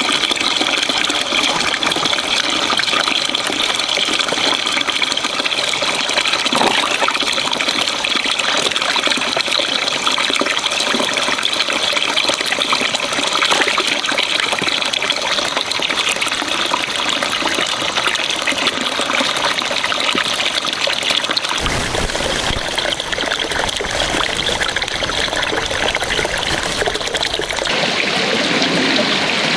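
Running water, a steady trickling and gushing flow; the sound shifts abruptly about two-thirds of the way through and again near the end.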